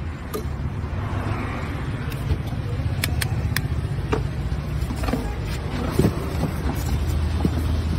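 Street traffic noise with a steady low engine hum, and a few light sharp clicks partway through.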